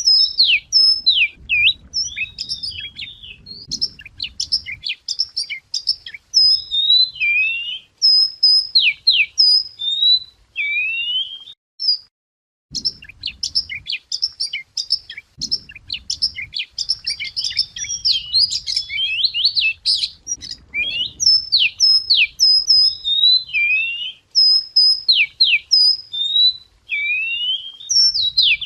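Song of the bird known in Vietnamese as chìa vôi: a fast, varied string of sharp whistles, slurred up-and-down notes and short trills, with a brief pause about twelve seconds in. It is a lure recording, and the same song passage comes round again near the end.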